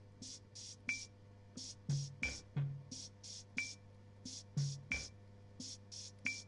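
Drum machine playing a sparse, even rhythm: short hissy cymbal-like strokes about three a second, a low thump every few beats and a brief high tick, over a steady low hum.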